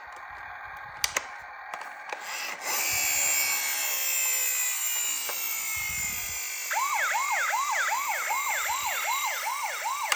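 A toy emergency vehicle's electronic siren. After a few clicks it comes in loud about two and a half seconds in with slowly falling tones, and near seven seconds in it switches to a fast yelp of about three rising-and-falling sweeps a second.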